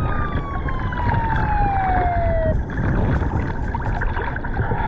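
A patrol boat's siren, one long wail that slides slowly down in pitch and cuts off abruptly about halfway through. It sounds over a constant wash of water and wind on a microphone at the water's surface.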